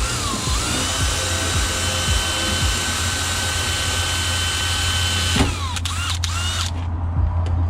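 Power drill boring a mounting hole through the door, spinning up and running steadily with a high whine for about five seconds, then stopping and giving a few short trigger bursts.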